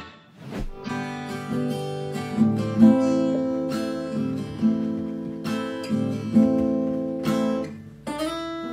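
Acoustic guitar strummed by hand, chords ringing with a strong stroke about once a second and the chord changing several times.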